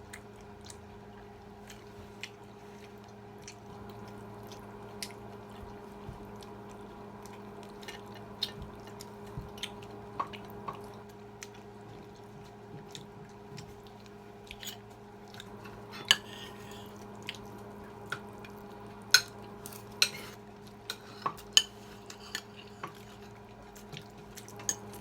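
Cutlery clicking and scraping on plates during a meal, in scattered sharp taps that come louder and more often in the second half, over a steady low hum.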